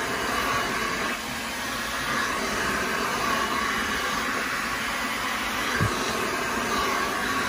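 Hair dryer blowing in a steady rush of air as hair is blow-dried, with one brief low bump late on.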